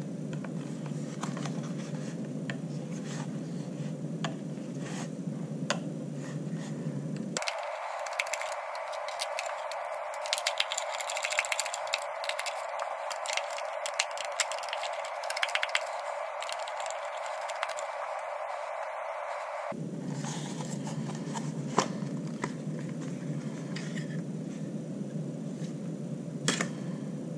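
Small clicks and scrapes of a screwdriver and hard plastic parts being handled while T8 Torx screws are undone from a Dyson V6 cyclone assembly, over steady background noise that shifts abruptly to a higher hiss about seven seconds in and back about twenty seconds in.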